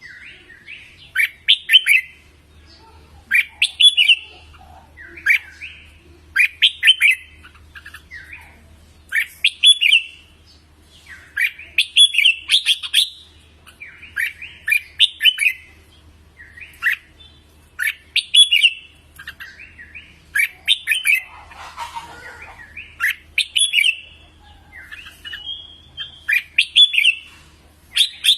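Red-whiskered bulbul singing: short, bright, whistled phrases, repeated about every second with brief gaps.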